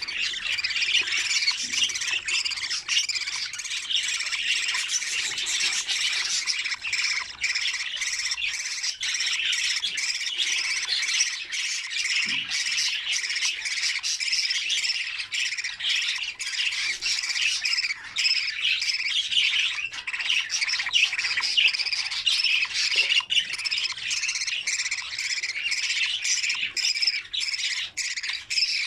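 Many budgerigars chattering and squawking together in a constant, dense din of short calls.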